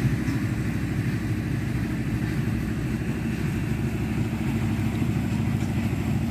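An engine running steadily at idle, a low even rumble that does not change.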